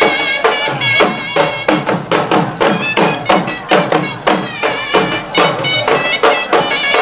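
Pashto folk music for the Khattak dance: a surnai (reedy double-reed shawm) plays a held, ornamented melody over steady, driving dhol drum beats.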